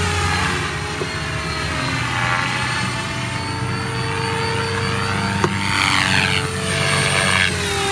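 MSH Protos electric RC helicopter in flight: its stock motor and spinning rotor give a steady whine and hum that swells and sweeps in pitch as it passes back and forth. The sound is loudest about six seconds in, and there is a single sharp tick just before that.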